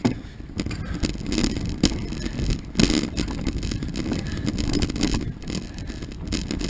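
Mountain bike ridden over a rough dirt singletrack: a steady rumble of knobby tyres on the trail, broken by frequent sharp knocks and rattles as the bike hits bumps.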